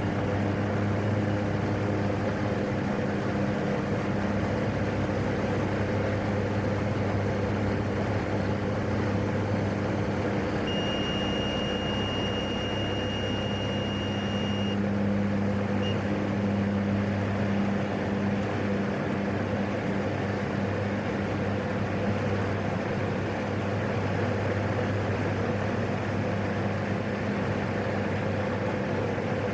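PAC 750XL's Pratt & Whitney PT6A turboprop and propeller running steadily during takeoff and initial climb, a constant drone with a faint high turbine whine. About eleven seconds in, a steady electronic beep sounds for roughly four seconds.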